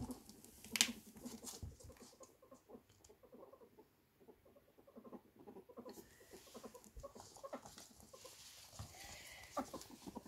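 A ferret making rapid soft clucking sounds (dooking) while scrabbling in a fleece blanket and pattering on a wooden floor, with a sharp knock about a second in.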